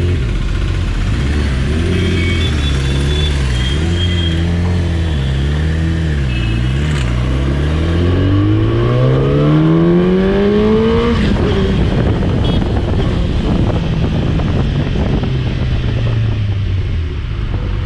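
Bajaj Dominar 400's single-cylinder engine, with wind rushing over the helmet microphone. The revs rise and fall with small throttle changes, then climb steadily for about three seconds and drop about eleven seconds in at a gear change, after which wind and road noise drown most of the engine.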